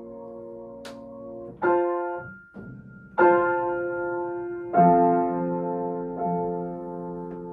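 Grand piano playing a slow passage of sustained chords. A new chord is struck about every one and a half seconds, four in all, and each one rings and fades, with a brief lull just before the second.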